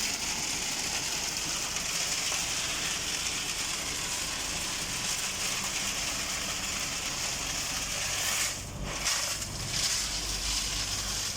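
Tractor PTO-driven transit concrete mixer running, a steady gritty rushing noise with a short drop in level about nine seconds in.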